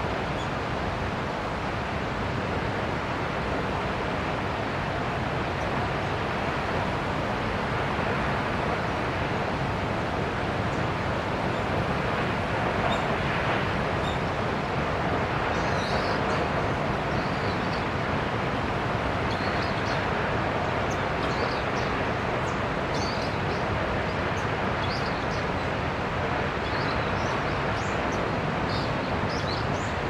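Steady, even rush of Senpiro Falls, a tall waterfall falling down a granite cliff. Short high bird chirps come in from about halfway on.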